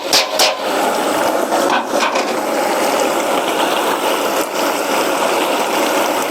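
Chili peppers frying in hot oil for hot pot base: a steady sizzle, with a few scraping strokes of stirring near the start and again about two seconds in.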